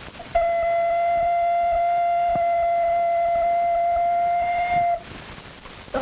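Ocarina blown hard on a single steady high note, held for about four and a half seconds and then stopped abruptly.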